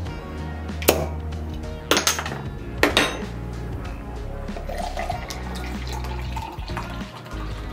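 Three sharp metallic clinks as a spoon works at a glass beer bottle. Then beer glugs from the bottle into a glass mug for about three seconds, filling it, over background music.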